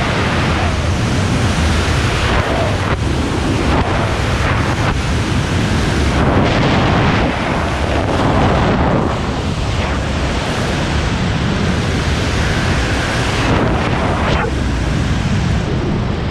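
Loud rushing freefall wind buffeting a skydiver's camera microphone, swelling and easing with no break.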